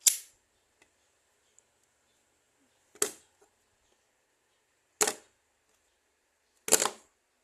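Folding knife blade clicking sharply, four times about two seconds apart, as it is flicked open and snapped shut.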